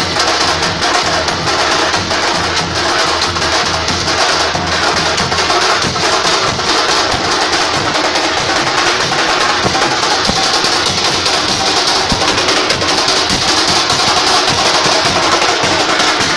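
Loud percussion music: fast, dense drum beats played without a break.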